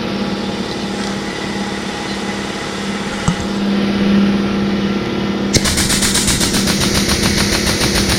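Steady mechanical hum, then about five and a half seconds in an air compressor starts up suddenly with a loud, fast, even clatter.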